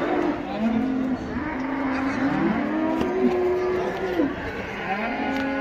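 Cattle mooing: several long, low calls, some rising at the start, one held for nearly two seconds in the middle, with another starting near the end.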